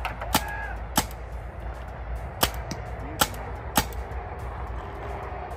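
Paintball markers firing single shots: five sharp cracks at irregular intervals, with a few fainter pops between them.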